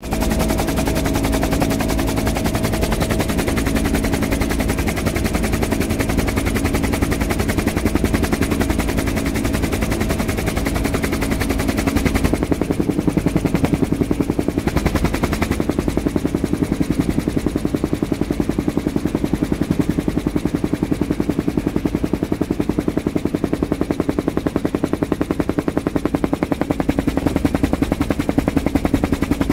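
Helicopter rotor chop and turbine noise heard from inside the cabin, a steady fast pulsing with a hum underneath; the engine note changes about twelve seconds in.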